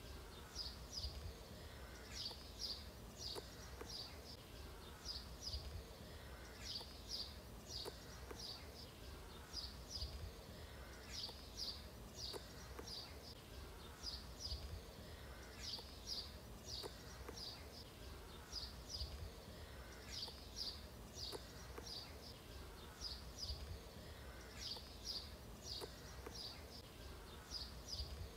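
Insect chirping ambience: short, high chirps repeating in an uneven rhythm, roughly one to two a second, over a faint steady low rumble.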